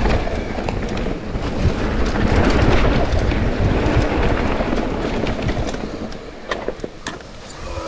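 Mountain bike rolling down a dirt trail: a steady rumble of tyres over rough ground, the bike rattling with sharp clicks, and wind rushing on the microphone. It eases off about six seconds in.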